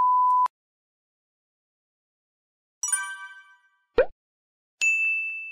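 A short steady test-tone beep, the kind heard over TV colour bars, stops half a second in. After silence come sound effects: a bright ringing chime about three seconds in, a short pop at four seconds, and another ringing ding near the end whose high note holds on.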